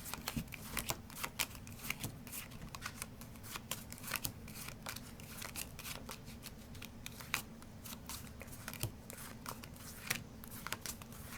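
Playing cards being handled: repeated soft snaps and clicks of cards slid, flicked and moved around in the hands at an uneven pace. A steady low hum runs underneath.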